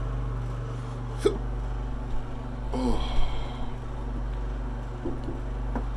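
A man's hiccup about a second in, then a louder breathy vocal gasp around three seconds, from the burn of a hot chili pepper he has just eaten. A steady low hum runs underneath.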